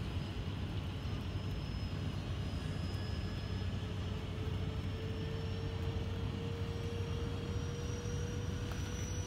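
Twin 70 mm electric ducted fans of an FMS A-10 radio-controlled jet in flight, a steady rushing whine whose pitch rises slightly over several seconds.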